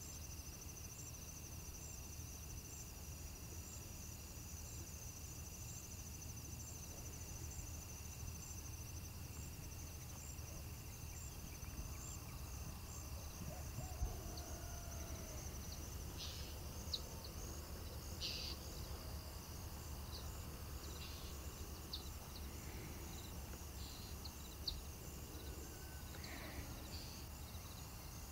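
Rural dusk ambience: insects trill steadily, one trill pulsing evenly, over a low steady rumble. Birds chirp sporadically from about halfway through.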